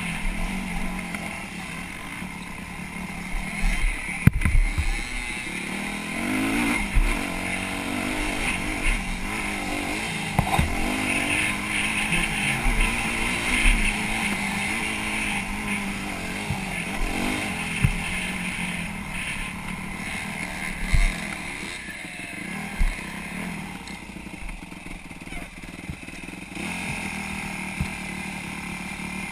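Dirt bike engine running close to the microphone, its revs rising and falling as it rides a dirt motocross track, with several sharp knocks along the way. Near the end it settles to a steadier, quieter running as the bike stops.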